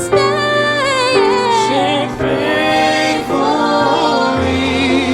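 Gospel worship music: voices singing sustained, wavering melody lines over a band's steady keyboard chords and bass.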